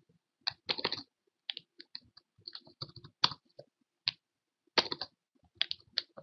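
Typing on a computer keyboard: a run of irregular keystrokes with short gaps between them.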